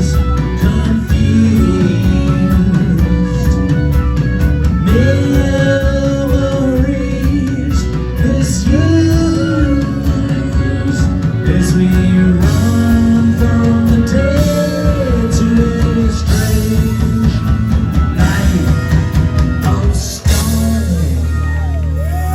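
Live rock band playing, with an electric guitar lead of bending, sliding notes over bass and drums. About twenty seconds in the band stops together and a low chord is left ringing.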